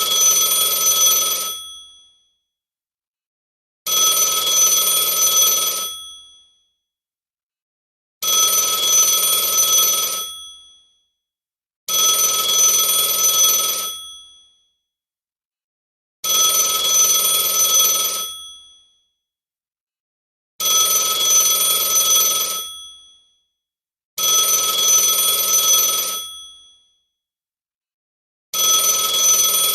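Telephone ringing: eight rings of about two seconds each, separated by about two seconds of silence, with each ring fading away at its end.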